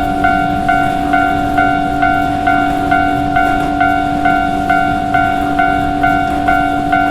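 Japanese railroad crossing warning bell (fumikiri) ringing its 'kan-kan' alarm, a pitched strike repeating evenly about twice a second, over a steady low hum.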